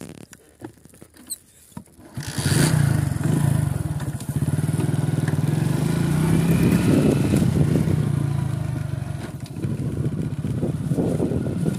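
Motorcycle engine that comes in suddenly about two seconds in, after a few faint clicks, and then keeps running steadily as the bike rides along.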